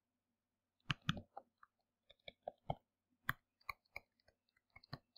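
A stylus tapping and scratching on a tablet screen during handwriting: over a dozen light, irregular clicks, starting about a second in.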